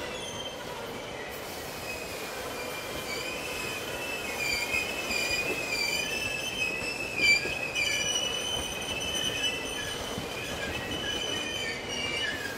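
Steel wheels of slow-moving Rovos Rail passenger coaches squealing against the rails on a curve: a high, wavering squeal that drifts in pitch over the rolling noise, briefly louder about seven seconds in.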